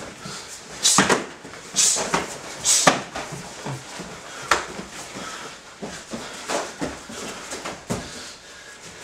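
Punches and kicks landing in full-contact Kyokushin karate sparring: an irregular series of sharp hits, the hardest about one, two and three seconds in and another near the middle.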